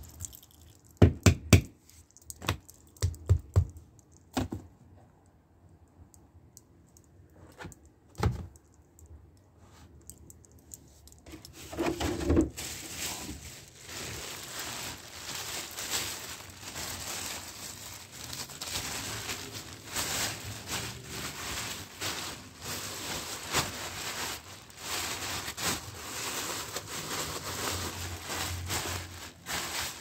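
A handful of sharp knocks as stiff objects are set down and tapped on wooden boards. Then, from about eleven seconds in, steady crinkling and rustling of a thin plastic bag being handled.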